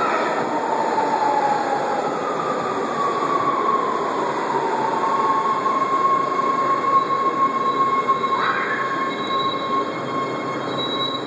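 Subway train running through the station: a continuous loud rumble with a high wheel squeal that slides down in pitch and then holds on one note for several seconds.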